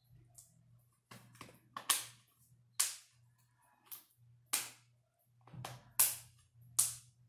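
Sharp plastic snaps, about one a second, as the Asus Zenfone Max Shot's housing is pressed together along its edges and its clips click into place.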